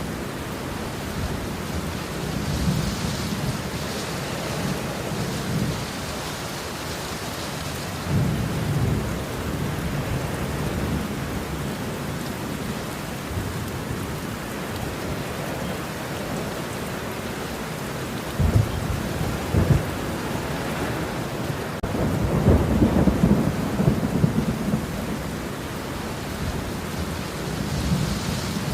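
Steady rain with thunder. Low rumbles swell about eight seconds in, two sharp claps come about two-thirds of the way through, and a longer rolling rumble follows soon after.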